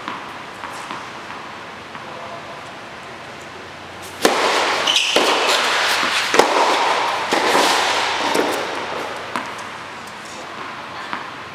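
Tennis point on an indoor hard court: a ball bounced a few times before the serve, then sharp racket strikes on the ball about a second apart during a rally, with a brief shoe squeak. A loud rushing noise sets in suddenly about four seconds in and fades over several seconds.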